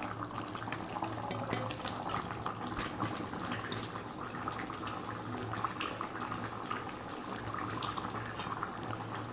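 Steel ladle scooping thick chicken curry from a kadai and pouring it into a steel bowl: wet sloshing and pouring with many small clinks of the ladle on metal, over a steady low hum.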